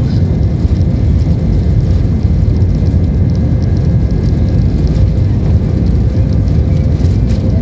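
Airbus A320 cabin during the takeoff roll: the jet engines at takeoff power and the wheels rumbling on the runway, a loud, steady rumble with a faint steady hum over it.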